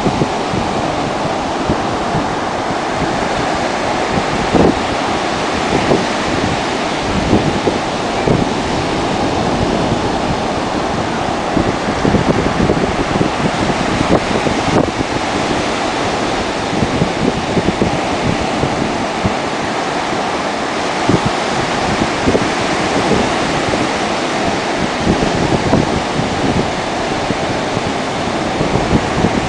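Ocean surf breaking and washing up a sandy beach, a steady rushing noise, with wind buffeting the microphone in frequent short low gusts.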